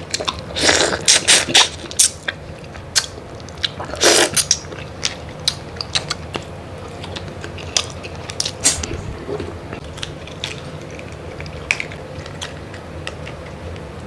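Close-miked eating: biting and chewing prawn and crab, with sharp crackling and clicking of shell. The crackles come in clusters about a second in, at about four seconds and near nine seconds, with scattered single clicks between.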